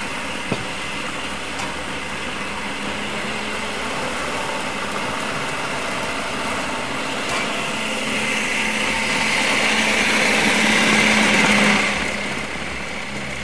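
Steady hiss of a lit gas stove burner under a frying pan with a little oil in it, swelling louder about eight seconds in and falling back about twelve seconds in.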